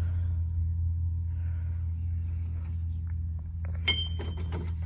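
A steady low hum with faint voices in the background, and a single sharp metallic clink, with a brief ring, just under four seconds in.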